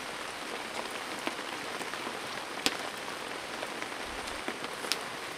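Rain falling steadily: an even hiss of rain with scattered louder single drops, the sharpest about halfway through.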